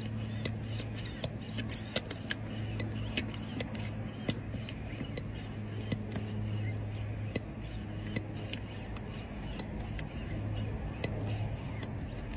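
Small electric ball pump running steadily with a low hum and scattered clicks, its needle in a deflated dog-toy soccer ball to inflate it.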